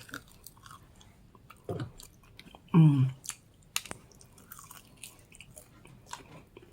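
A person chewing and biting food, with many small crunches and mouth clicks, and two short vocal sounds about two and three seconds in, the second louder and falling in pitch.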